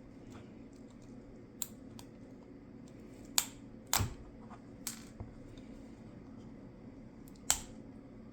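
Hard objects being handled, making five sharp clicks and knocks, the loudest about a third of the way in and near the end, over a low steady hum.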